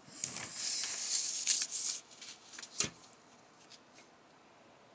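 Paper rustling and rubbing with a few small clicks for about two seconds, then a single sharp tap near three seconds, then faint room tone.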